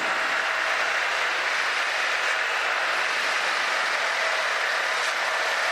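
Cessna 182Q's six-cylinder Continental O-470 engine and constant-speed propeller running steadily at run-up power during the propeller check, the pitch rising near the end.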